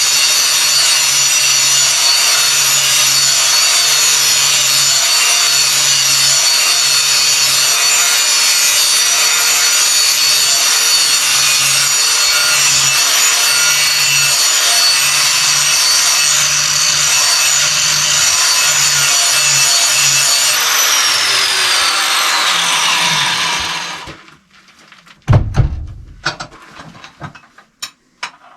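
Angle grinder with a 1/4-inch grinding wheel grinding down the edges of steel tong handles, a loud steady whine with a harsh grinding rasp. About 21 seconds in it is switched off and winds down, falling in pitch, followed by a few sharp knocks near the end.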